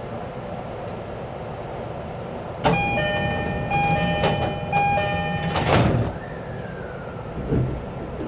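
Door-closing chime of an E531-series train, a repeated electronic tone about once a second, then the sliding doors shut with a thud.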